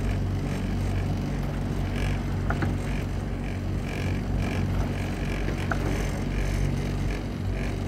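Outboard motor of a coaching launch running steadily at low speed, a continuous low hum.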